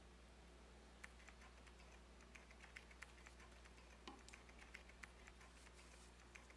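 Faint, scattered clicks and taps of chopsticks handling food, dabbing sauce onto pork on a perilla leaf held in the hand, starting about a second in. A low steady hum lies underneath.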